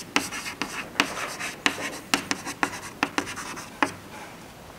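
Chalk writing on a chalkboard: a quick run of sharp taps and short scratches as a word is chalked, stopping about a second before the end.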